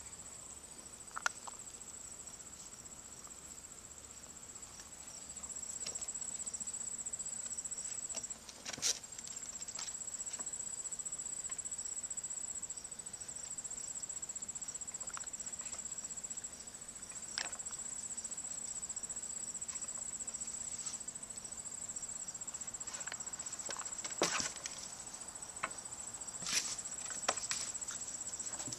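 A steady high-pitched chorus of crickets, with scattered light knocks, taps and patters from puppies scrambling over a wooden plank and cardboard boxes.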